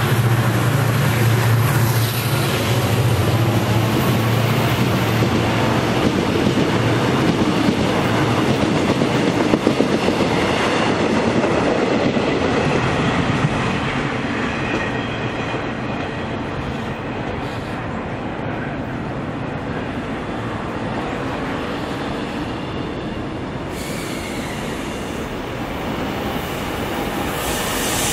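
Korail 7400-series diesel locomotive passing with a deep engine drone near the start, then its passenger coaches rolling by. The wheels clatter over rail joints, with high squealing tones from the wheels on the curve through the middle.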